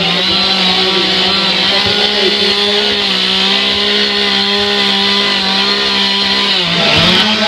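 Two-stroke chainsaw running at high revs as it carves into an upright log, with a steady whine. About seven seconds in, the pitch dips briefly, then rises a little higher.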